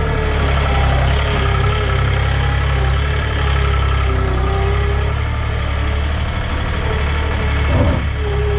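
Engine of a farm machine running steadily at low revs, a heavy low rumble with a wavering tone above it and a brief bump near the end.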